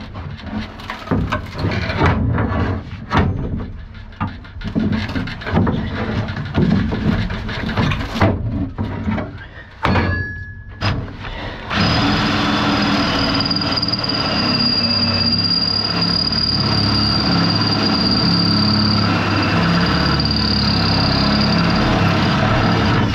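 Steel floor-pan sheet metal being bent and knocked about, with irregular metallic clanks and thuds. About twelve seconds in, a cordless drill starts and runs steadily with a high whine, drilling out the spot welds in the steel cargo floor.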